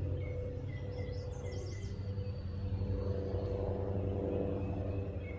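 A steady low hum of several held tones runs under the outdoor ambience. A bird chirps a few times between about one and two seconds in.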